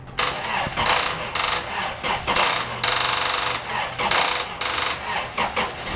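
Hot oil in a turkey fryer pot crackling and sizzling as a fried turkey is lifted out of it on its rack. It starts suddenly and comes in uneven surges.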